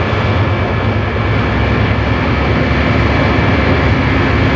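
Aircraft cockpit ambience: a steady, dense rumble of engines and airflow with thin, steady whining tones above it. A faint low hum joins about halfway through.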